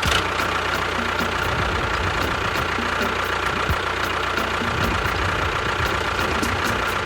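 A motor running steadily: a dense rattling hum with a constant high whine over it. It starts and stops abruptly.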